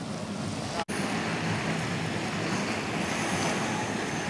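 Steady outdoor background of wind on the microphone and lapping surf, with a low motor drone from boats. The sound drops out for an instant about a second in.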